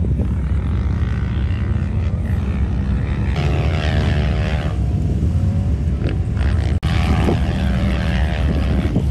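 Off-road vehicle engines running in a steady low drone, with a dirt bike's engine revving and wavering in pitch about three seconds in as it climbs a steep sand dune. The sound cuts out for an instant about seven seconds in.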